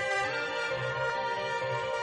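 Background music: sustained chords over a soft low pulse, the harmony shifting about a quarter of a second in.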